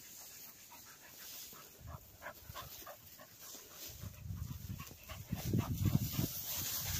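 Cocker spaniels panting while they hunt for retrieves, with a louder low rumbling noise coming in from about four seconds in.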